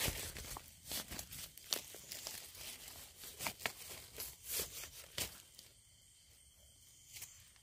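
Dry leaf litter and forest-floor debris crackling and crunching in a quick, irregular series of sharp crunches, which die down after about five seconds.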